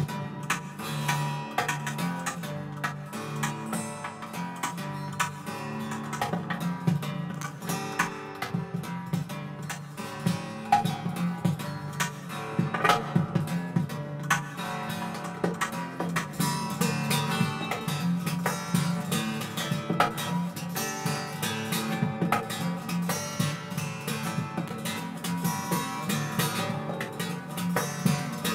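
Amplified acoustic guitar played solo as an instrumental, picked and strummed with many sharp, percussive attacks.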